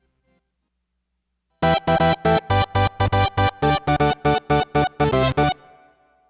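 Roland Integra-7 synthesizer playing a Synth Polykey tone as a fast run of short staccato stabs, about four a second. The run starts after about a second and a half of silence and ends in a brief fading tail.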